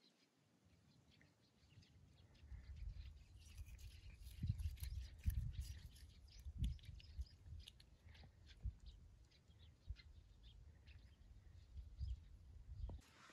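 A cat biting and chewing a blade of grass held out to it: faint crunching clicks over a low, uneven rumble.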